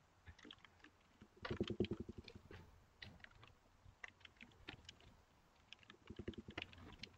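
Computer keyboard typing, faint, in quick irregular runs of keystrokes, the busiest run about one and a half to two seconds in.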